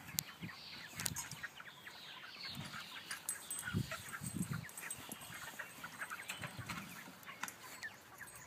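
Broiler chickens peeping and clucking in many short, scattered chirps, with a few low thumps and clicks.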